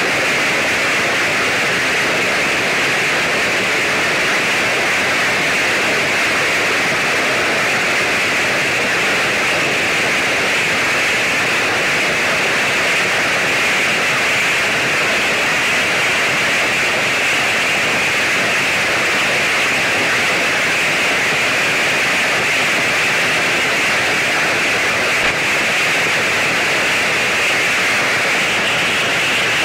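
A heavy hailstorm: dense hail, mixed with rain, pelting down on foliage and ground in a steady, unbroken hiss.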